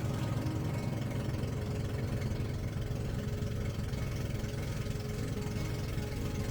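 Boat engine running at a steady speed: a low, even drone with a fine rapid pulsing.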